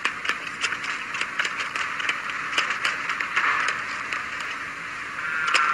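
Steady hiss with frequent, irregular clicks and crackle, typical of a worn old film soundtrack, with no clear sound source of its own.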